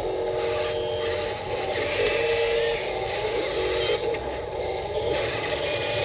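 Electric motors and gearboxes of a Huina radio-controlled wheel loader whining in short, steady-pitched spells as it drives and works its bucket in a dirt pile, over a constant hiss.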